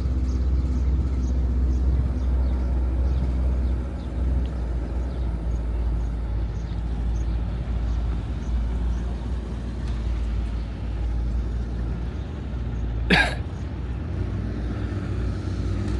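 Motorboat engine running steadily with a low hum, and one short sharp sound about 13 seconds in.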